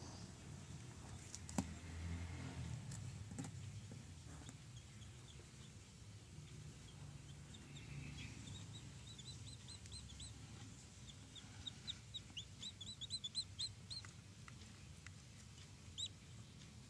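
Chicks peeping: faint, short, high-pitched chirps that begin about halfway through and come several a second, thickest near the end, over a low steady hum and a few clicks.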